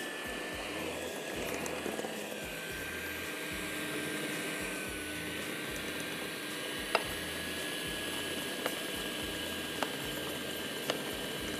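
Electric mixer running steadily, beating cake batter as flour and liquid are added a little at a time, with a steady whine. A few sharp taps come in the second half.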